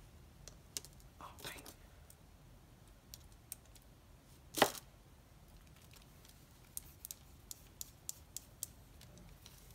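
Faint light clicks and taps of plastic pen parts being handled as a gel pen refill is fitted into a pen barrel, with one louder sharp snap about halfway through.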